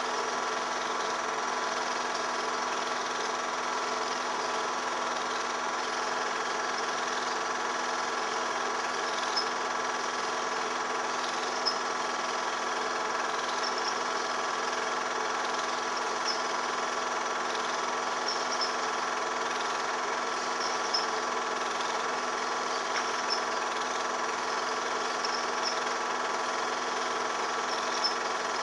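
Film projector running steadily, its motor and film transport making an even mechanical whirr with a few faint clicks.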